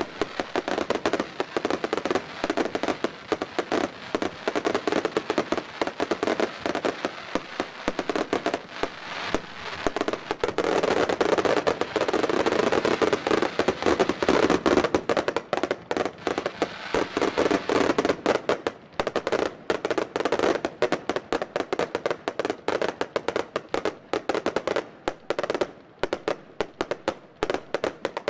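Consumer (F2) fireworks firing in a dense barrage: a rapid, continuous string of shot bangs and bursting cracks, heaviest in the middle. In the last third it thins into quicker, separate cracks and crackles.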